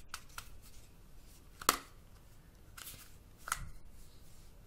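A plastic flip phone being handled in the hands: quiet rustling with a few separate sharp clicks, the loudest about a second and a half in.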